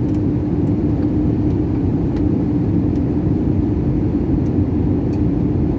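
Airliner cabin noise in flight, heard inside the cabin by the window: the turbofan engines and rushing air make a steady low drone with a constant hum through it.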